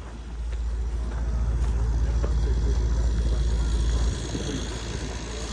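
Wind buffeting the microphone in a low, steady rumble that eases suddenly about four seconds in.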